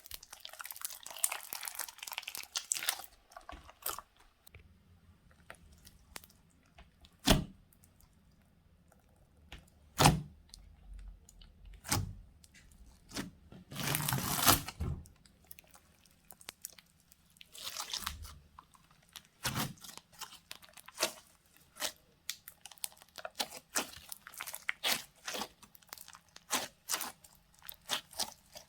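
Slime being squished, stretched and poked by hand: irregular crackles and clicks, a few sharp single pops, and a few longer crunchy squelching stretches.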